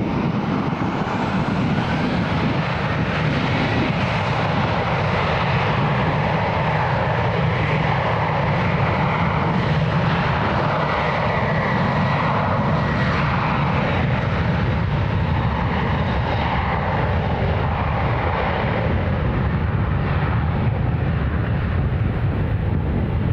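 Boeing 737 jet airliner's engines running loud and steady throughout, a deep rumble under a faint whine that shifts in pitch.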